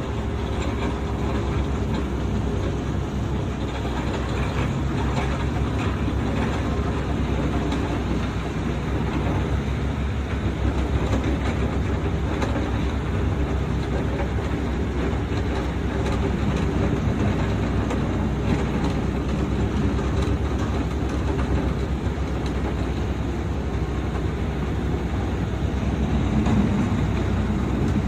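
Diesel engine of a heavy construction machine running steadily at a constant, low-pitched drone.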